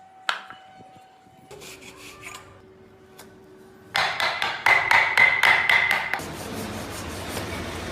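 Hand tool worked against wood: a click near the start, then about halfway through a loud run of quick rasping strokes, about five a second, for a couple of seconds, easing into steadier scraping.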